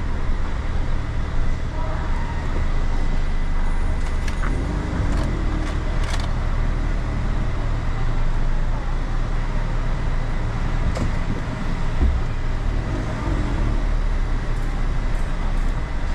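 Steady low rumble heard from inside a Citroën Jumper camper van as it rolls slowly across a ferry's enclosed steel car deck, with a few faint clicks along the way.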